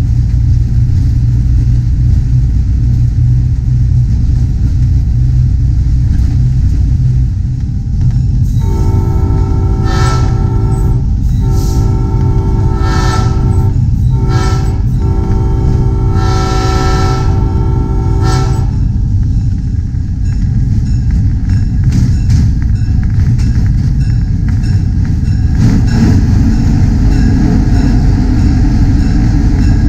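A train sounding its multi-chime horn in the grade-crossing pattern, two long blasts, one short and one long, over the steady low rumble of the train running.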